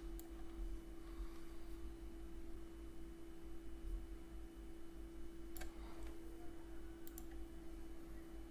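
A few computer mouse clicks, two of them in quick succession near the end, over a steady low electrical hum.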